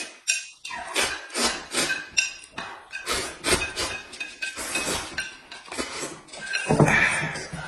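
Noisy eating: chopsticks clicking and scraping on a plate as noodles are shovelled into the mouth, with a rapid run of short eating noises, about two or three a second. There is a louder burst near the end.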